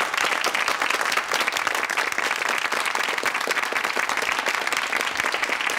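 Studio audience applauding: a dense, even clatter of many hands clapping.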